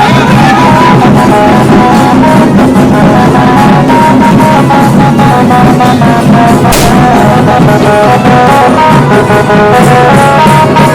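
A loud live tasa band playing: a brass melody over fast, dense drumming. One sharp bang cuts through about seven seconds in.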